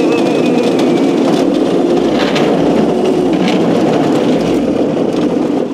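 Razor Crazy Kart XL electric drift kart driving over rough, bumpy ground: a steady electric motor whine over the rumble and rattle of its small wheels on the surface. The whine fades about halfway through.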